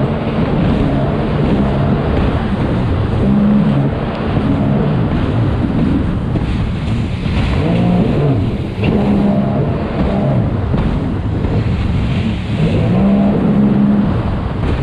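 Sea-Doo Spark personal watercraft engines (three-cylinder Rotax) running hard in a race, the pitch rising and falling repeatedly as the throttle is worked, over wind and water noise.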